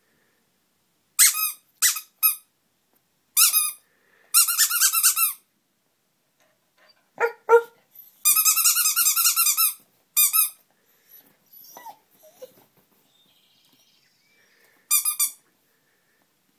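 Tiny rubber duck squeezed again and again, giving high fluttering squeaks: short single squeaks, two long drawn-out squeals, and a last burst near the end. About seven seconds in the corgi answers with two short barks, and a faint whine follows a few seconds later.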